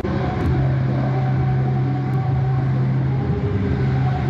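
Distant amplified sound from a church's worship service, heard as a steady low tone with hiss as it carries across the neighbourhood.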